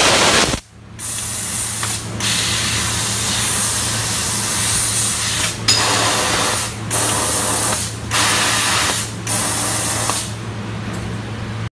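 Laser cutting machine cutting stainless steel sheet: a loud steady hiss of the cutting head's gas jet that stops and restarts several times between cuts, over a steady low machine hum.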